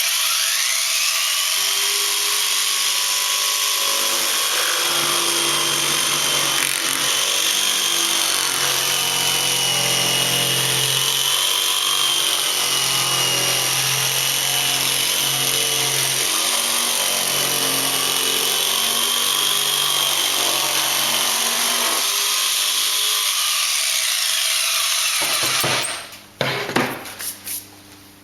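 RIDGID R3100 compact orbital jigsaw cutting 1/4 inch MDF with a wood blade: the motor spins up, runs steadily with a wavering whine through the cut, then winds down about 25 seconds in, followed by a few light knocks. The saw struggles on the corners of the cut, even in thin MDF.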